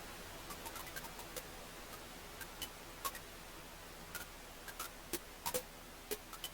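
Wood fire crackling: irregular sharp pops and snaps over a soft steady hiss, with a cluster of louder pops about five seconds in.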